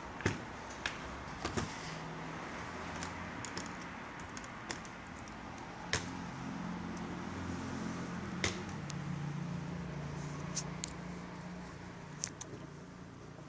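Scattered sharp clicks and taps of small plastic netbook parts and screws being handled during disassembly, at uneven intervals over a steady background hiss.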